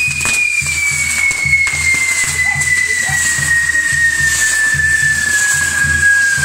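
Fireworks on a burning castillo tower: one long firework whistle that slowly falls in pitch, with a sharp crack a little over a second in. Music with a steady low beat plays under it, about three pulses a second.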